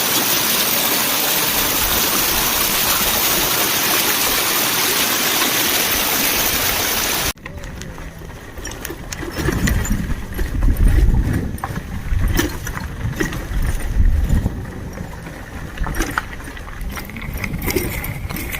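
Waterfall water pouring down close by, a loud steady rushing hiss. About seven seconds in it cuts off abruptly to gusty wind buffeting the microphone, with a low uneven rumble and scattered small clicks.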